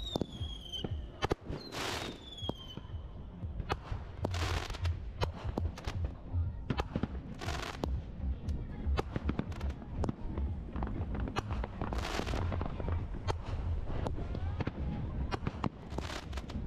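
Aerial fireworks shells going off in quick succession, a stream of sharp bangs. Near the start two whistles fall in pitch, and several short bursts of crackling hiss come between the bangs.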